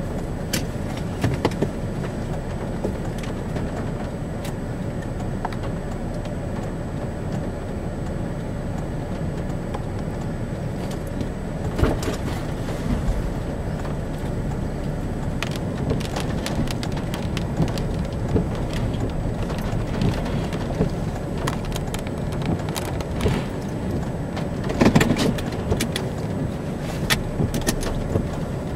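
Steady low rumble of wind and a motor vehicle heard from inside the car, with scattered taps of raindrops hitting the vehicle.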